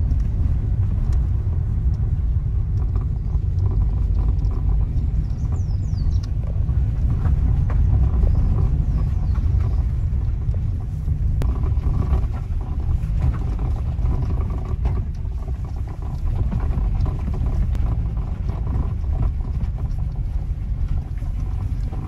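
Steady deep rumble of a vehicle on the move, road and wind noise with no clear engine note.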